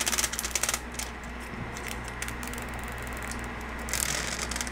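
Clear protective plastic film being peeled off the glass screen of a MustHD 5-inch field monitor, crackling in quick runs of fine clicks at the start and again near the end.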